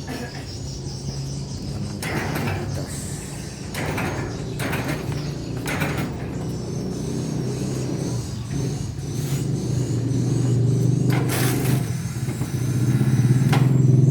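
A motor running with a steady low hum that grows louder in the second half, with a few short knocks and clatters over it.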